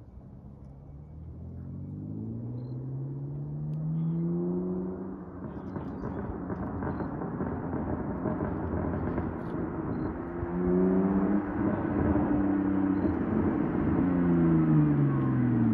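BMW 128i's straight-six running through a straight-pipe exhaust (only the primary catalytic converters left), accelerating toward the microphone and growing steadily louder. The engine note climbs with the revs, drops sharply at a gear change about five seconds in, climbs again around ten seconds, and falls near the end.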